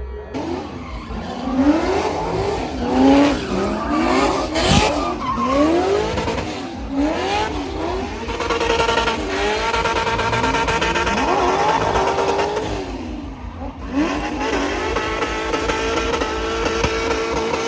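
Drift car engine revving hard up and down over and over, with tire squeal from the spinning rear tires. There are abrupt breaks near the start and about three-quarters of the way through.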